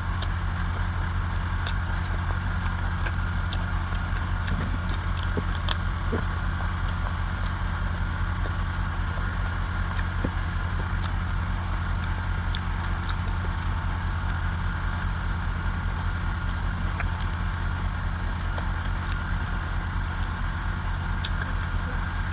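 A steady mechanical hum, like an idling engine or motor, with scattered light clicks and taps.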